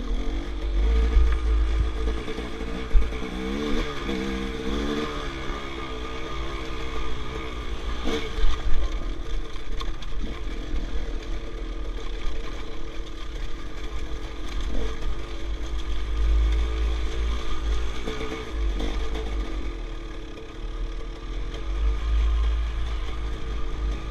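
Enduro dirt bike engine running as it is ridden along a rough trail, its pitch rising and falling with the throttle, under a heavy low rumble on the helmet-mounted microphone. A few sharp knocks of the bike over the rocks stand out, notably about three and eight and a half seconds in.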